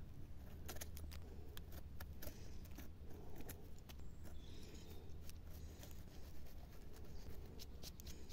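Faint scraping and small irregular clicks of a knife blade cleaning soil off the base of a bronze bolete (Boletus aereus) stem.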